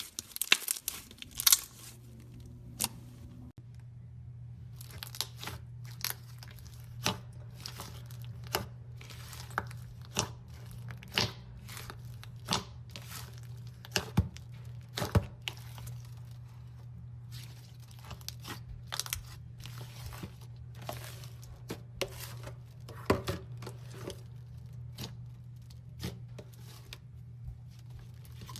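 Slime being squeezed and pulled apart by hand, giving irregular sticky pops and crackles, over a steady low hum.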